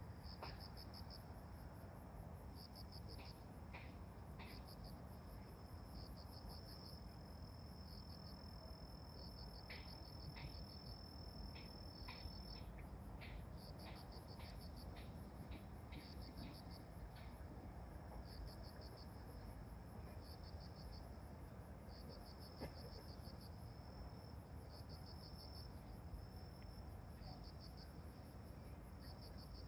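Insects singing: a high trill that comes and goes in bouts, over a steady, faster-pulsing and even higher trill.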